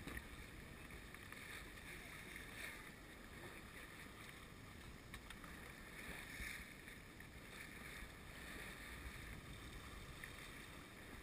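Faint rush of water along the hull of a sailing yacht under way, swelling and easing every few seconds as it meets the waves, with a little wind.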